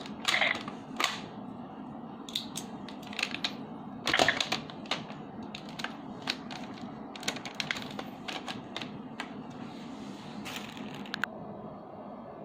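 Irregular clicks and clatter of hard plastic toy parts being handled, with a few louder snaps. The clicking stops a little before the end.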